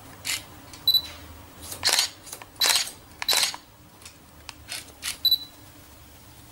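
Haircutting scissors snipping through wet hair: about ten short, crisp snips spread over five seconds, the loudest in the middle, several with a brief high metallic ring as the blades close.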